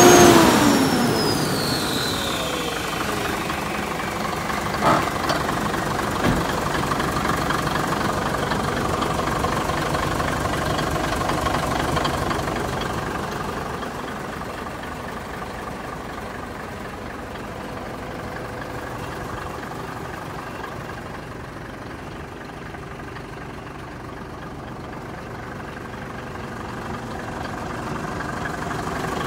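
Mitsubishi Fuso Super Great truck's diesel engine idling, its pitch falling back from a rev in the first second. It runs steadily, with two sharp clicks about five and six seconds in, and grows fainter in the second half.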